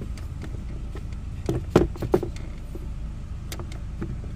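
Several sharp plastic clicks and knocks as the glove box and dashboard trim are handled, the loudest bunched about one and a half to two seconds in and a couple more near the end, over a steady low rumble.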